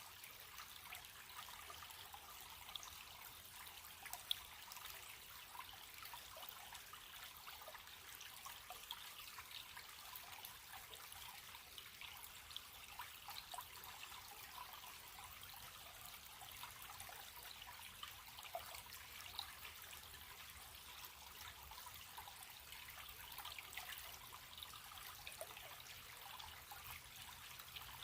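Running stream water: a faint, steady rush with frequent small splashes and drips.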